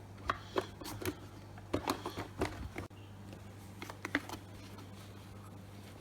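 Plastic parts of a Fluval 306 canister filter being handled while its impeller cover is fitted: a quick run of light clicks and knocks over the first three seconds and a couple more about four seconds in, over a steady low hum.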